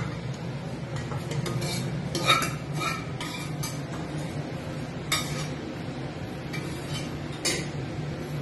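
Steel spoon scraping and clinking against a metal kadai and steel pot as spiced oil masala is scraped out, with several scattered sharp clinks over a steady low hum.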